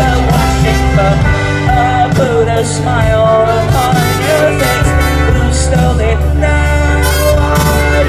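Live indie rock band playing, with keyboards, trumpet, violin and a singer over a heavy bass line. The bass drops away about a second in and comes back about five seconds in.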